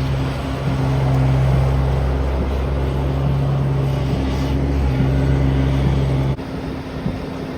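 A motor vehicle's engine running steadily with a low hum over a noisy wash. It cuts off abruptly about six seconds in, leaving a quieter steady noise.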